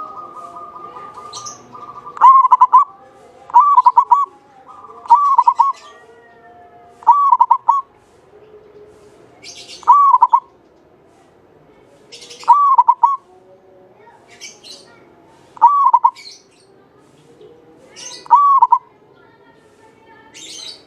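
Javanese zebra dove (perkutut) cooing: about eight short, bubbling coo phrases, repeated every two to three seconds.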